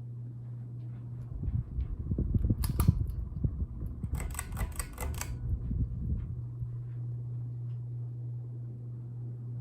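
Hampton Bay Minuet III ceiling fan running with a steady low hum. From about a second and a half to six seconds in there is a stretch of low bumps and a quick run of sharp clicks, the loudest part.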